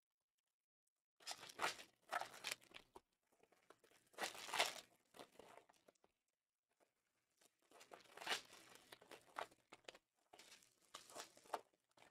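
Foil trading-card pack wrappers being torn open and crinkled in the hands, in several short bursts a second or two apart.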